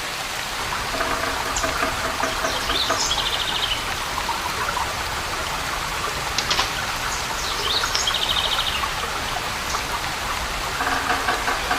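Steady rushing of a forest waterfall, with a songbird singing the same short phrase twice, each ending in a quick trill. A lower, rapidly pulsing call comes in about a second in and again near the end.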